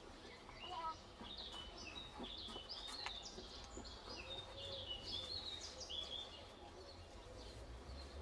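Small songbirds singing, a quick run of short high chirps and trills, over a low steady background rumble.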